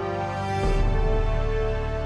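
Background music of sustained synth tones, with a deep bass swell coming in just over half a second in.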